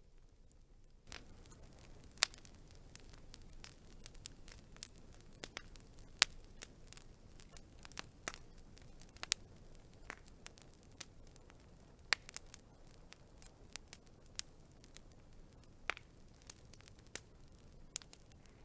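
Wood fire crackling: irregular sharp pops and snaps, a few of them loud, over a low steady hiss of burning that grows louder about a second in.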